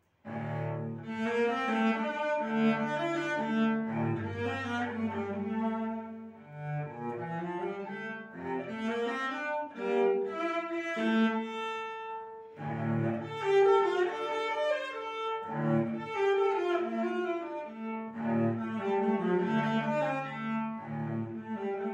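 Solo cello bowed in a classical piece. It comes in suddenly out of silence just after the start, with shifting notes and brief lulls between phrases.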